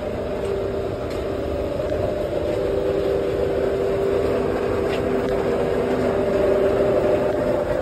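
Steady machine hum with two steady tones, from running vending machines close by, growing slightly louder near the end.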